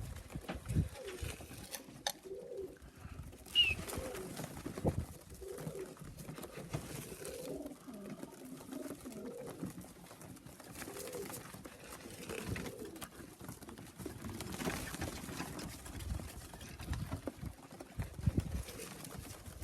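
Young racing pigeons cooing repeatedly, with a few short knocks in between.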